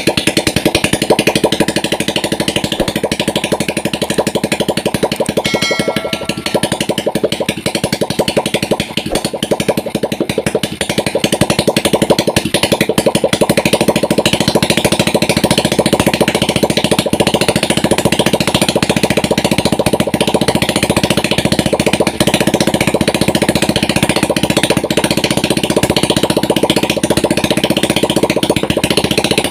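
Freshly assembled Honda Revo Absolute 110cc single-cylinder four-stroke engine running steadily after its rebuild.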